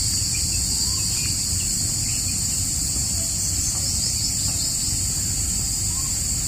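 Steady high-pitched drone of an insect chorus in the trees, with a few faint bird chirps and a low rumble underneath.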